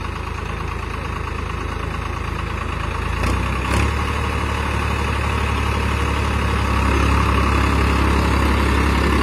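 Farmtrac 60 tractor's diesel engine running at low throttle in first low gear, pulling through soft soil without stalling. Its steady low hum grows louder about three and a half seconds in and again near seven seconds as the load comes on.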